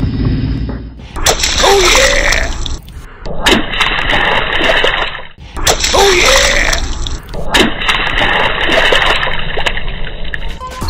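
Wet splattering and squelching as a toy truck's tyres crush and churn through soft jelly and cake. The same stretch of sound plays twice.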